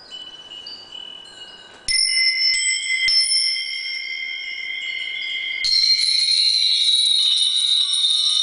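Rings of hanging metal tubes set swinging by hand, ringing with many overlapping sustained tones. A sudden clash about two seconds in starts the ringing, and a denser, louder wash of tones follows from about six seconds in.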